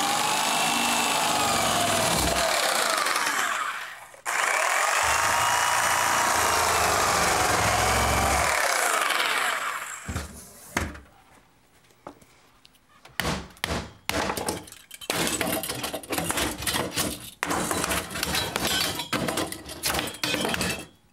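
Reciprocating saw cutting through a wooden cabinet frame in two long runs of about four and five seconds, its motor pitch wavering as the blade works. From about 13 seconds in, a string of sharp knocks and wood clattering as the cut-out frame pieces are hammered loose and pulled away.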